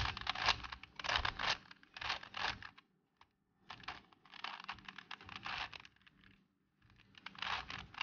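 Plastic 4x4 Rubik's Cube layers being turned by hand, a clicking, rattling clatter in quick runs of about half a second to a second each. There is a short pause about three seconds in and a longer one near six seconds.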